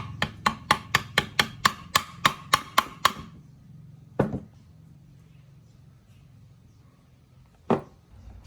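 Hammer blows on metal during chainsaw repair work: a quick run of about a dozen strikes at roughly four a second, each with a short metallic ring, then two single blows a few seconds apart.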